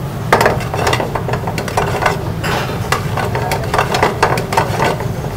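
Metal ladle stirring chicken being dry-roasted with spices in a frying pan over a low gas flame. Repeated scrapes and knocks against the pan come a few times a second over the sizzle, with a steady low hum underneath.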